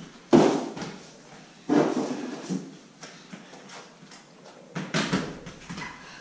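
Three thuds of children landing flips and tumbling on the floor: two close together near the start, and a third about three seconds later.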